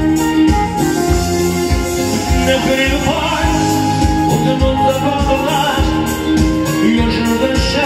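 Live band music over the stage PA: guitars and keyboard over a steady beat, with a voice singing from about two and a half seconds in.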